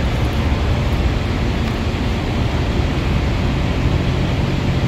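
Steady rushing noise with a low hum beneath it, even in level and without breaks.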